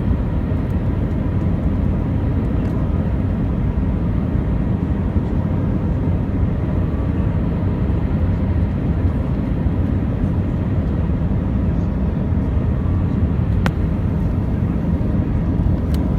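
Airbus A320 jet noise: a steady low rumble with a couple of faint steady tones above it, and two brief clicks in the second half.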